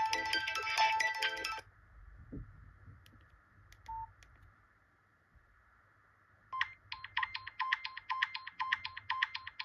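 Nokia 8800 Arte ringtones: a bright electronic melody stops about a second and a half in, and after a short gap with one brief beep, another ringtone starts near the end as fast repeated electronic beeps, about four or five a second.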